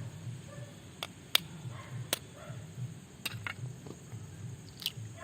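Several scattered sharp clicks and taps as an egg is cracked and added to mole crabs coated in spice masala.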